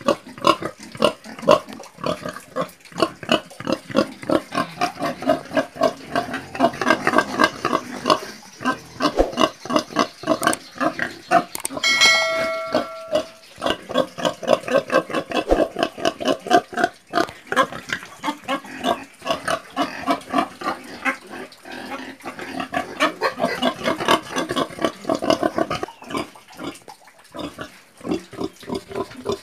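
Domestic pigs grunting in a dense, continuous run of short grunts, several a second, as they root in straw. About twelve seconds in, a short bell-like chime rings over the grunting.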